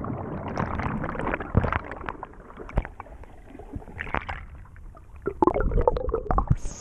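Muffled underwater sound in a waterfall pool: water churning and bubbling, with many short knocks and clicks and a louder churning spell near the end. Right at the end it breaks the surface and the bright hiss of falling water comes back.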